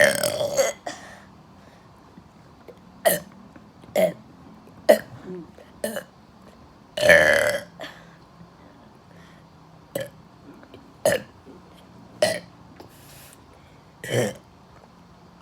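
A person burping over and over: about ten separate belches with pauses of one to three seconds between them, the longest and loudest about seven seconds in.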